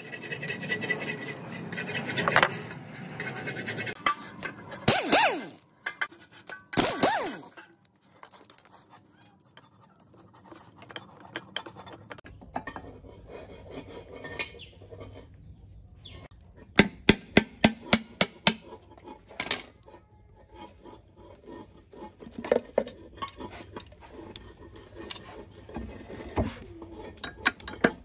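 Metal engine parts and hand tools clinking, knocking and scraping as parts are fitted onto an old diesel engine's crankcase, with a quick run of sharp clicks a little past the middle.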